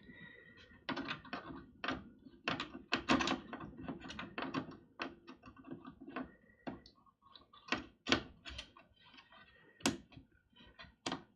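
Irregular plastic clicks and knocks of a DDR memory module being handled and pushed into its slot in a PowerMac G5, with the slot's retaining levers clicking; a few sharper clicks in the second half.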